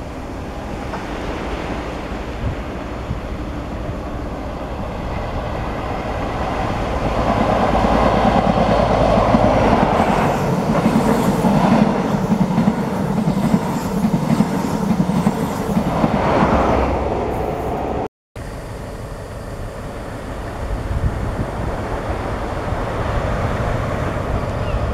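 A CrossCountry passenger train passes close by on the near track, swelling to its loudest over the middle of the stretch with its wheels clattering over the rail joints. It cuts off abruptly, followed by a First Great Western High Speed Train running by at a lower, steadier level.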